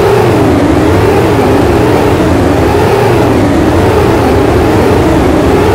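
Experimental drone soundtrack: a loud, steady low rumble under several tones that swoop up and down together about once a second, like a phasing engine hum.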